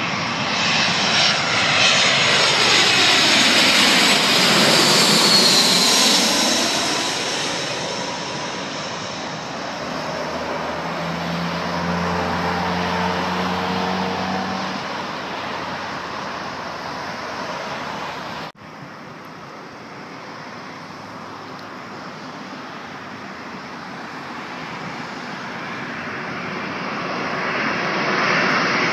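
An Airbus A320 airliner passes low overhead on final approach. Its jet engine noise is loud, and its whine sweeps down in pitch as it goes by. The jet noise then fades to a fainter, steadier hum. After a sudden cut, another airliner approaches and its engine noise builds again.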